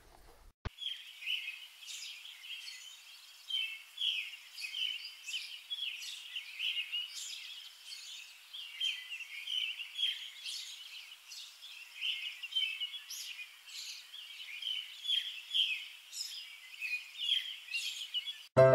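Small birds chirping and twittering in a busy chorus of many short, high calls, with nothing lower beneath them.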